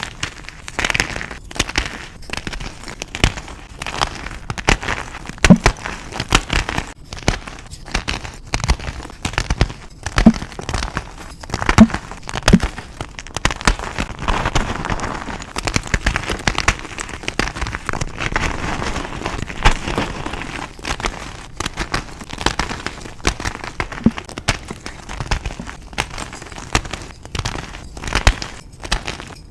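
Blocks of reformed gym chalk being crushed and crumbled: a dense, unbroken run of sharp crackles and crunches, with a softer grinding crumble for a stretch in the middle.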